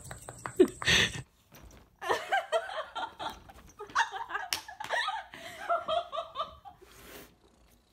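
A person laughing in quick, repeated bursts, with a sharp knock about halfway through.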